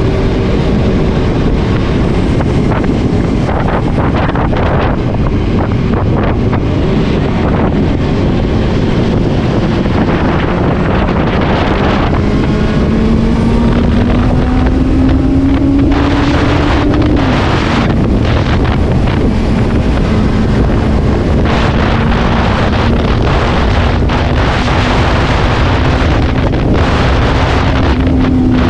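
Benelli TNT 600i inline-four motorcycle engine running under way, mostly buried under heavy wind buffeting on the microphone. Past the middle the revs climb steadily for several seconds, then drop sharply and hold steady.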